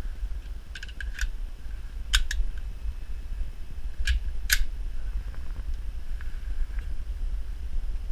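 Sharp metallic clicks as an AJ Ordnance Thomas .45 pistol is handled and readied to fire, coming in three pairs over the first half, over a steady low rumble.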